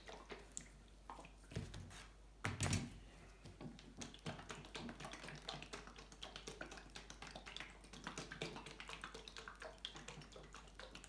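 Faint handling sounds from a bottle of T-Cut polish and a cloth: many small light clicks and rustles, with a couple of louder knocks about two seconds in.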